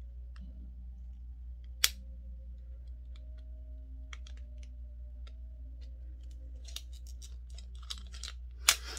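Cosmetic packaging being opened by hand: scattered sharp clicks and crackles, a loud snap about two seconds in and a quick flurry of them near the end, over a steady low hum.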